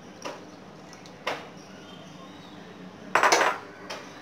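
A metal spoon knocking and scraping against an aluminium saucepan as coconut milk is stirred into a thick curry: a few short clinks, with the loudest clatter about three seconds in.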